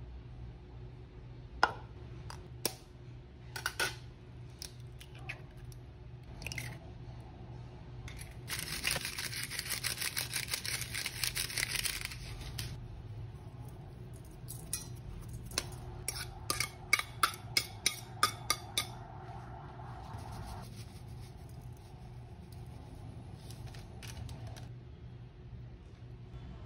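Food-prep handling noises at a stainless steel mixing bowl as ingredients go in: a few sharp clinks, then about four seconds of dense rapid rattling and scratching, then a quick run of evenly spaced clicks, over a steady low hum.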